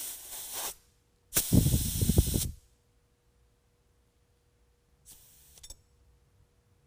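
Compressed air hissing out of an Air Lift LoadLifter 5000 Ultimate air spring in three bursts through the inflator gauge's release valve as it is bled down toward 5 PSI. The second burst is the longest and loudest, the last one short and faint.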